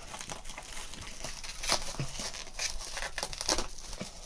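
Clear plastic wrapping on a tightly packed parcel being crinkled and pulled apart by hand: irregular crackling with a couple of louder crackles.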